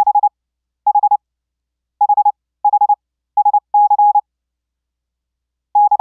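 Software CW practice oscillator: a pure sine tone of about 828 Hz, gated on and off by a keyer-driven 555 sidetone, sending Morse code. It comes in short runs of rapid dits with a few longer dahs, separated by silent gaps.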